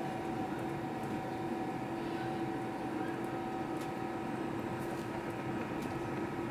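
Steady hum of a regional train heard from inside the passenger car, with a few faint steady tones running through it.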